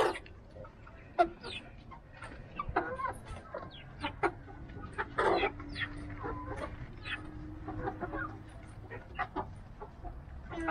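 Several Rhode Island Red hens clucking in short, scattered calls, with one louder call about five seconds in and a few sharp taps among them.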